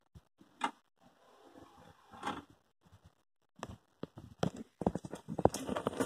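Scattered light knocks and clicks, coming thicker in the last second and a half, from a phone and a wristwatch being handled against a rolling-ball clock's plastic case.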